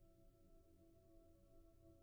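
Faint drone of a solo piano recording slowed down about eight times: the notes are smeared into several steady ringing tones over a low rumble, with no attacks.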